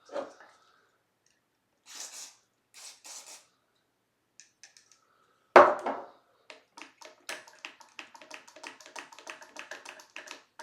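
Two short hisses of DeoxIT contact-cleaner spray, then a sharp knock and a fast run of small clicks and rattles as the guitar's controls are worked back and forth to spread the cleaner.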